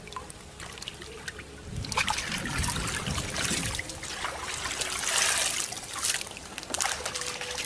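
Shallow muddy water trickling and sloshing as hands and feet work through a flooded rice-field pool groping for fish, with small splashes. It grows louder about two seconds in.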